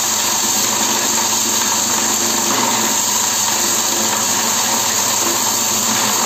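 AIP-10 perga extraction machine running steadily while it beats frozen perga comb cuttings apart and separated perga granules pour from its chute into a bucket: an even, loud mechanical noise with a faint steady hum underneath.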